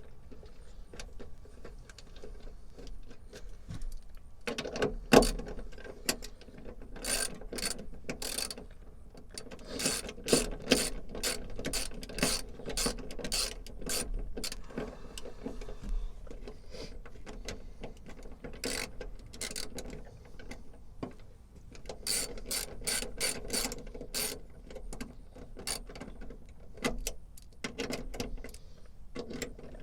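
Hand ratchet wrench clicking in quick runs, with short pauses between, as the tailgate latch bolts are tightened.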